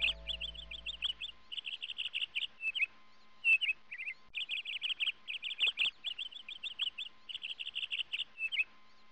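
Birdsong used as end-card audio: bursts of rapid high chirps and trills, the same pattern repeating about every four and a half seconds as a loop. A held music chord fades out during the first second and a half.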